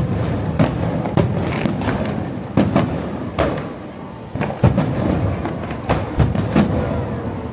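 Fireworks shells bursting overhead: a dozen or so sharp bangs and booms at irregular intervals, some in quick pairs, each with a short echoing tail.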